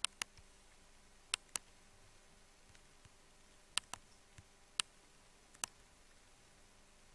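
Computer mouse button clicking: about seven sharp clicks, several in quick pairs a fifth of a second apart, over a faint steady hum.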